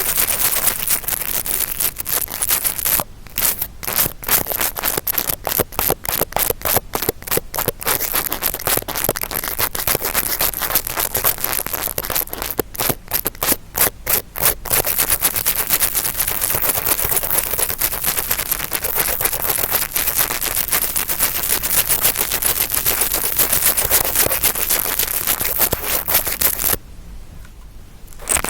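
Interdental brush scraping and rubbing to imitate ear cleaning: a dense, crackling scratching that twice breaks into separate quick strokes, about three seconds in and again around twelve seconds, and pauses briefly near the end.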